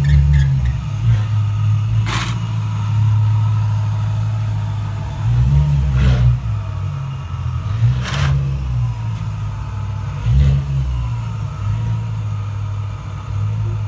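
Supercharged BMW E92 M3 S65 V8 with an Innotech Performance exhaust idling loudly, blipped briefly about four times. A few short sharp cracks are heard, about 2, 6, 8 and 10 seconds in.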